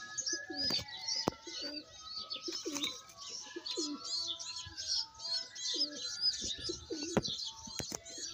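Pigeon squabs begging for food: a rapid run of high, squeaky cheeps that goes on without a break, with adult pigeons cooing low underneath.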